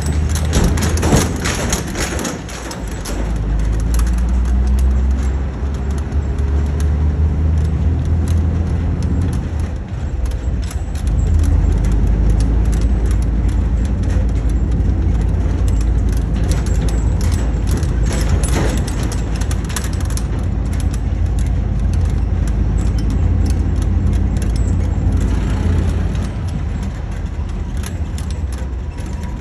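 Heavy 4225C truck's diesel engine running on the move, a low drone whose pitch climbs over the first several seconds and dips briefly about ten seconds in, with rattling and clicking throughout.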